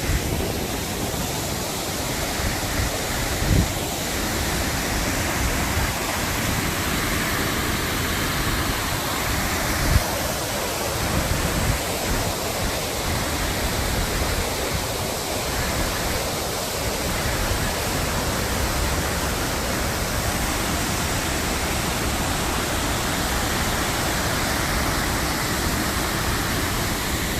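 Steady loud rushing of river water and a waterfall, with two brief low bumps, a few seconds in and about ten seconds in.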